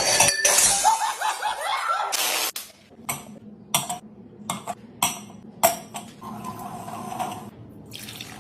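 Loud jumbled noise with a few short cries for about two and a half seconds, then a run of sharp separate clinks and knocks, about a dozen over three seconds, as of dishes or glassware being handled.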